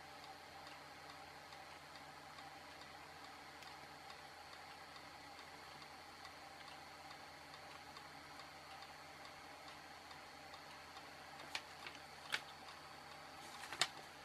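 Steady low hum of a small fan blowing solder fumes away from the workbench, with a few sharp small clicks near the end.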